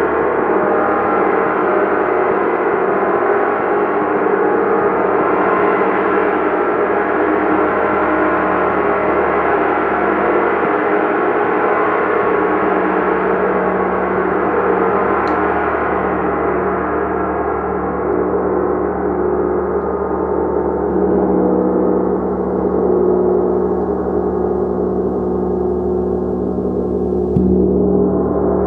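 A gong being played continuously: a dense, sustained wash of many overlapping ringing tones. The bright upper shimmer slowly fades, and a fresh stroke near the end brightens it again.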